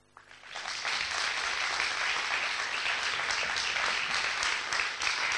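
Audience applauding at the end of a speech. It swells within the first second to steady, dense clapping.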